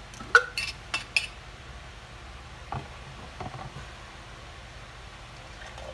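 Glass mason jars being handled: four sharp clinks with a brief high ring in the first second and a bit, the first the loudest, then a couple of softer knocks about three seconds in.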